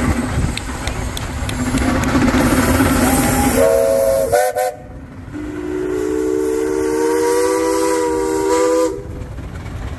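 Steam traction engine whistles. Steam hisses, a short whistle blast sounds about four seconds in, and then a longer, lower whistle sounding several notes at once starts about a second later and cuts off sharply near the end.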